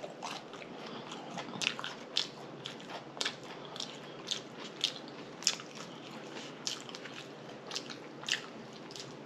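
Close-miked chewing of a whiting fish slider, with wet mouth clicks and lip smacks about twice a second.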